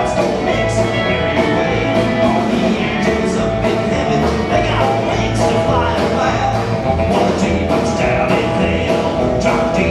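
Live country band playing, with upright bass, acoustic guitar and fiddle over drums keeping a steady beat.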